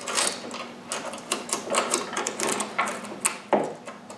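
Steel saw chain clicking and rattling as it is pulled by hand along a chainsaw bar's groove, with irregular metallic ticks from the links.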